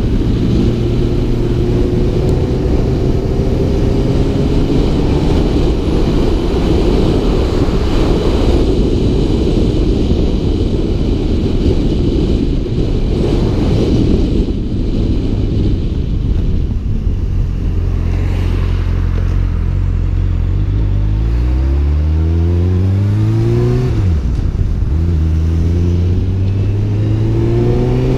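Honda CB600F Hornet's inline-four engine under way, heard through heavy wind and road noise on a helmet-mounted camera. Late on it accelerates hard: the revs climb, drop at a gear change and climb again.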